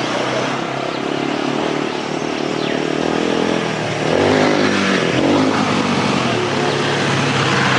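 A motor vehicle engine running steadily, louder from about four seconds in.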